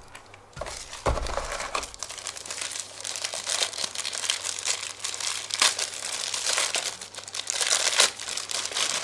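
Clear plastic bag crinkling and rustling as it is handled and pulled off a small USB wall charger. There is a dull bump about a second in.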